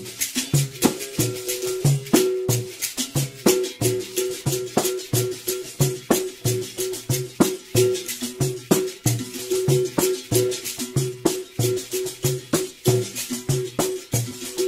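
Berimbau played solo in a fast, even capoeira toque: the stick strikes the steel wire, moving between a low note and a higher note, with the caxixi basket rattle shaking on the strokes.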